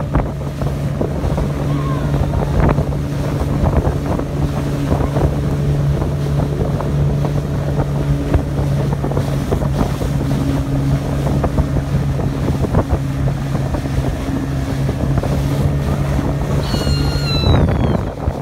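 Small open boat's engine running at speed, a steady drone under the rush of wind on the microphone and water spray along the hull.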